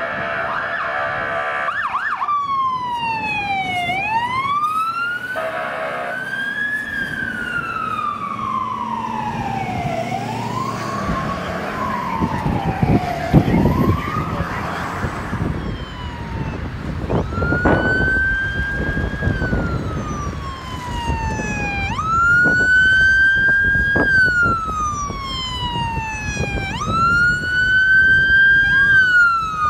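Fire-truck electronic sirens wailing, rising and falling slowly every few seconds, with truck engines rumbling underneath. Before that, a steady horn-like tone sounds for the first couple of seconds. Later the siren jumps up quickly and falls away slowly in longer cycles.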